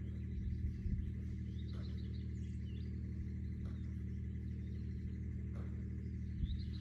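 A steady low hum made of several held tones, with faint bird chirps now and then and a soft bump under a second in.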